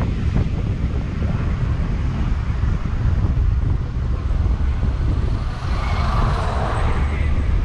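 Wind buffeting the microphone over a steady engine and road rumble, riding high on a moving tour bus. About six seconds in, an oncoming bus passes close by, its rush swelling and fading.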